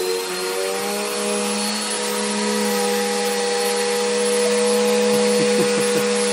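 Vacuum cleaner motor running at full speed, a steady whine made of several held tones.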